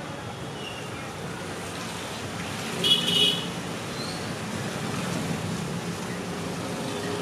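Street traffic noise running steadily, with a short vehicle horn toot about three seconds in.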